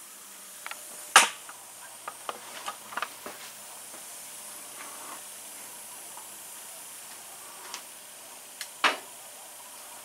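A few short, sharp clicks and knocks over a steady hiss, the loudest about a second in and another near the end.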